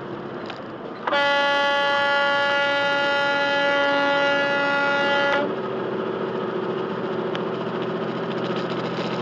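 Semi truck's air horn in one long, steady blast of about four seconds, starting about a second in and cutting off sharply. It is a warning at a car merging into the truck's lane without checking its blind spot. Steady cab engine and road noise runs underneath.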